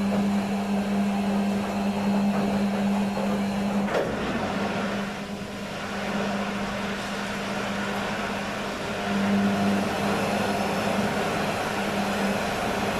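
Beko washing machine running: a steady electric hum over a wash of drum and water noise, with a click about four seconds in, after which the hum drops away and returns twice later.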